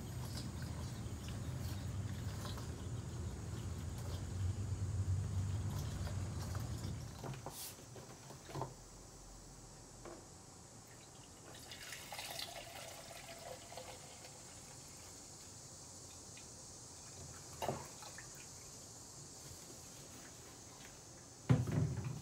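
Diesel fuel being siphoned through a clear plastic hose from a vehicle fuel tank, a low steady rushing gurgle for about the first seven seconds. Then, fainter, diesel poured into the small reservoir of a diesel injector pop tester, with a few light clicks.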